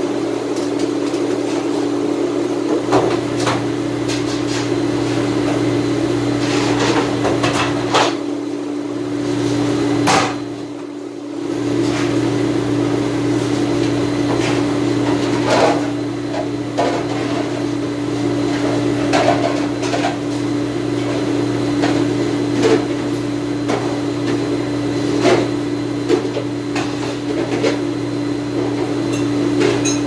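Steady mechanical hum of commercial dish-room machinery, with scattered knocks and clatter of dishes and racks; the hum drops off briefly about ten seconds in.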